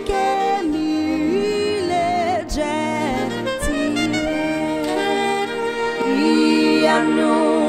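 A woman singing a slow hymn in long held notes, accompanied by a soprano saxophone.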